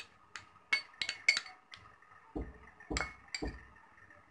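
Steel spoon clinking against a glass bowl while desiccated coconut and powdered sugar are stirred. About five sharp clinks come in the first two seconds. A few dull knocks and two more clinks follow around the three-second mark.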